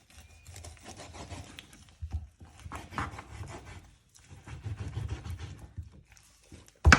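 A kitchen knife cutting and scraping through a raw chicken thigh joint on a cutting board, with irregular rubbing and handling of the meat, and one sharp knock just before the end.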